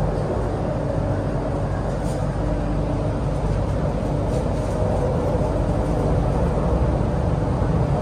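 Steady running noise inside a carriage of an MTR Island Line Q-Train, the CRRC Qingdao Sifang-built stock, under way: a constant rumble with a faint steady hum.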